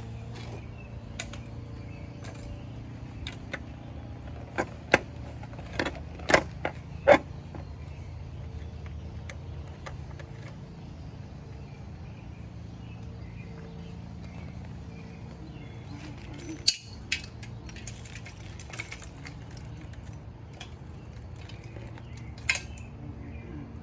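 Sharp metallic clinks and rattles from parts being handled on a pit bike, in a cluster about five to seven seconds in and again a couple of times later, over a low steady hum.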